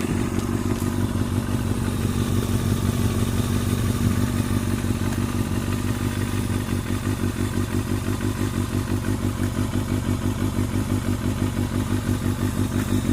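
Kawasaki Balius II motorcycle's four-cylinder engine idling steadily, with an even rhythmic pulsing that gets more pronounced about halfway through. It is the engine's abnormal noise being looked into.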